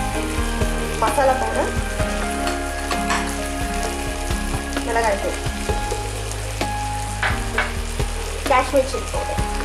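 Onions, tomatoes and ginger-garlic paste sizzling in hot oil in a nonstick pan, with scattered small pops. Three brief falling squeaks come about a second in, at about five seconds and near the end.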